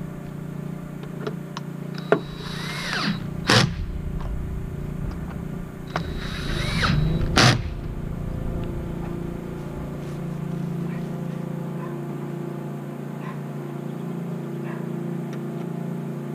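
Cordless drill driving the fasteners of a light bar's roof-rail bracket, its motor running with a steady hum. Two sharp clacks come about four seconds apart.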